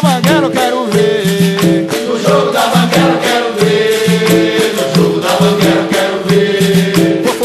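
Capoeira music: berimbaus twanging a repeating two-note pattern with the shaking rattle of caxixis and light percussion clicks.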